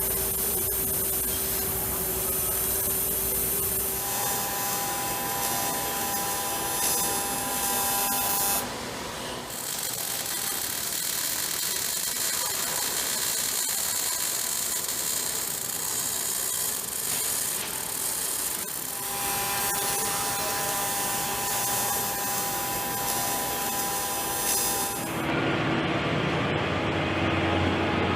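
Workshop power tools and machinery running: a steady hiss with a few steady whining tones that come and go, the sound changing abruptly several times.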